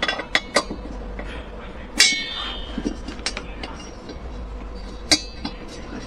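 Metal objects knocking and clinking together in a string of sharp clicks, with a louder ringing clang about two seconds in and another near the end, like hand tools or hardware being handled.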